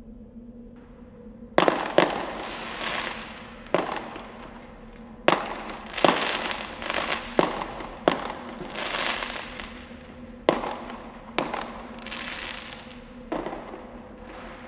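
Fireworks going off: about eleven sharp bangs, the first about a second and a half in, each followed by crackling that fades out, over a steady low hum.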